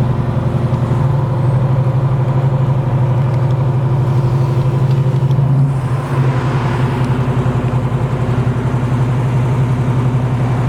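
1967 Chevelle's 396 big-block V8 running under way through headers and a Flowmaster dual exhaust, a steady, not overly loud exhaust drone. The note dips briefly about six seconds in, then carries on with more rushing noise.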